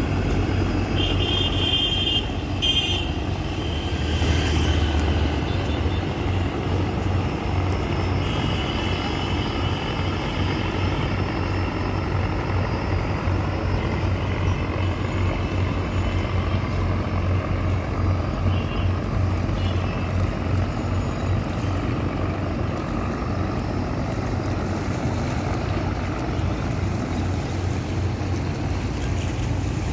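Large river passenger launch under way: a steady low engine drone with the rush of water and wind. A few short, high-pitched toots sound about a second in, again around eight to ten seconds, and briefly near the twenty-second mark.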